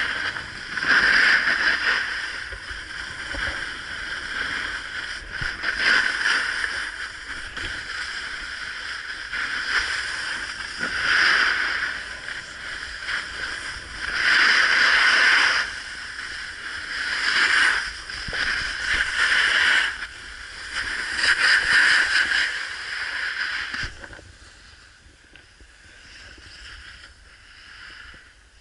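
Snowboard edges scraping over packed snow in repeated loud surges as the rider carves turn after turn, then dropping to a faint hiss about 24 seconds in as the board comes to a stop.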